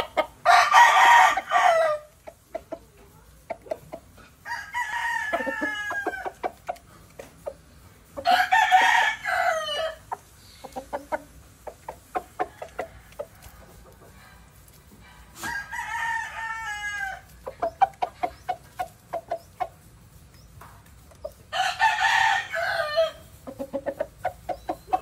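Rooster crowing five times, three crows louder than the other two, with short clucking notes in between.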